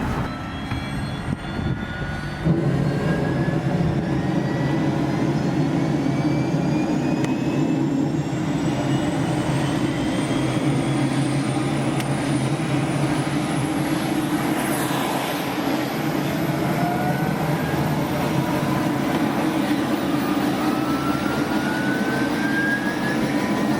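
Helicopter starting up: steady engine and rotor noise that steps up in loudness about two and a half seconds in, with a whine that rises slowly in pitch throughout as it spools up.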